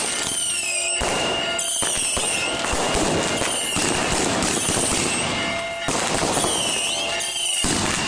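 Fireworks going off all at once, with a dense hiss and crackle of fountains and firecrackers. Several high whistles glide downward in pitch, and now and then there is a sudden sharp crack.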